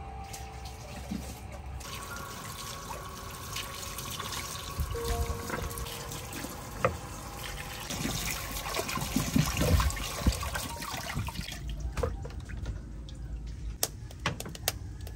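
Tap water running into a wooden bowl, splashing unevenly as hands rub and rinse leafy vegetables in it. Near the end come a few sharp knocks as things are set down on the bamboo counter.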